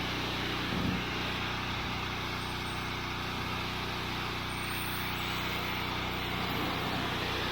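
Pressure washer running steadily: a constant motor drone under the hiss of the water jet spraying a truck's hood.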